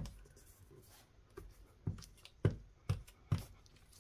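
Glue stick rubbed over paper on a tabletop, with a series of soft knocks: four, about half a second apart, in the second half.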